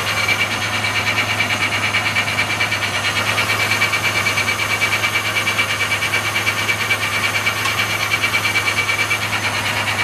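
Automatic transmission of a 1997 Ford Ranger grinding while in gear: a rapid, even pulsing of about five beats a second over a steady low hum. The code it has thrown (P1744) points to a torque converter clutch solenoid issue.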